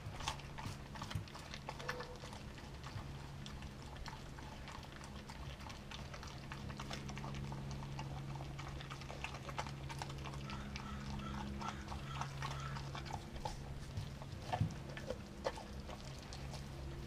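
A Doberman gnawing at a frozen raw chicken thigh, with scattered crunches and clicks of teeth on frozen meat and bone; the frozen chicken makes her gnaw slowly instead of gulping. A steady low hum runs underneath.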